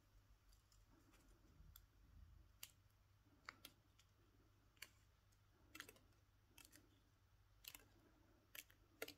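Near silence with faint, irregular small clicks, about a dozen, from thin wire and stretchy floral tape being twisted and wrapped by hand.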